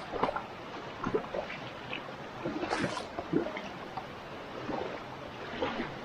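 Shallow river water trickling and gurgling, with irregular sloshing splashes.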